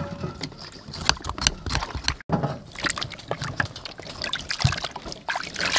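Knife scraping the skin off a gourd, then, after a brief gap a little over two seconds in, hands splashing and sloshing vegetables in a steel bowl of water.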